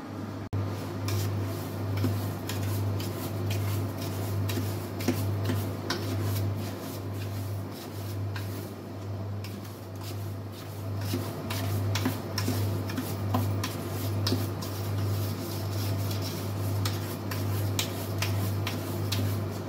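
A spoon stirring and scraping dry semolina as it toasts in a stainless steel pot, a dry rasping rustle with repeated strokes. Under it runs the steady low hum of the induction hob working at full power, pulsing regularly.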